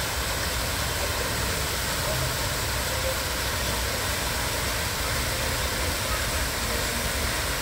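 Large tiered fountain running: water jets and the cascade over its stepped basin splashing in a steady, unbroken rush.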